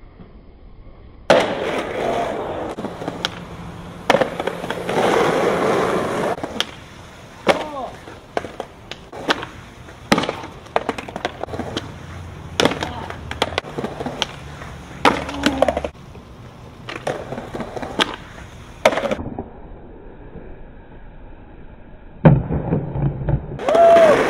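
Skateboard wheels rolling on concrete, broken by many sharp cracks of the tail popping and the board slapping down on landings.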